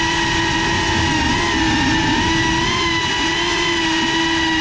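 Motors and propellers of a GEPRC CineLog35 cinewhoop quadcopter in flight, heard from the camera on board: a steady multi-tone whine whose pitch wobbles slightly as the throttle shifts, over a rushing noise.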